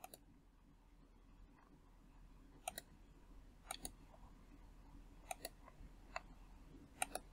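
Faint computer mouse button clicks, single and in quick pairs, about eight in all from about two and a half seconds in, with near silence between.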